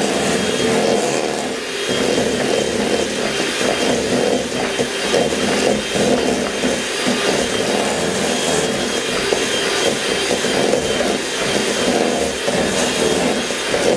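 Electric hand mixer running steadily, its beaters churning thick cookie dough against the sides of a stainless steel bowl.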